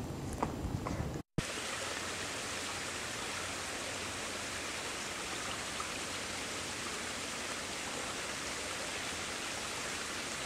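Small woodland brook running over rocks in a stone-lined channel: a steady, even rush of water. It begins after a momentary cut-out about a second in; before that there is only a low wind rumble.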